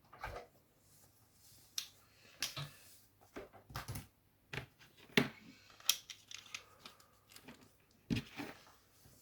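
Scattered short clicks, knocks and rustles of hands handling XLR cables and connectors, as one cable is swapped for another to be tested.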